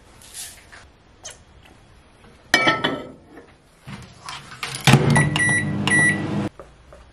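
Glass bowl of oats clinking down into a microwave oven, the door shutting, then the microwave beeping twice and running with a steady hum that cuts off suddenly.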